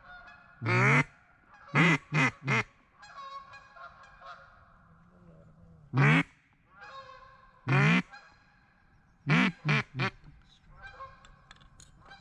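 Duck call blown close by in mallard quacks: one long quack, a quick run of three, two single quacks, then another run of three. Softer, steadier quacking runs in between.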